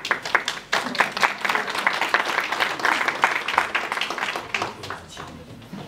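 Audience applauding: a dense patter of hand claps that thins out and fades in the last second or so.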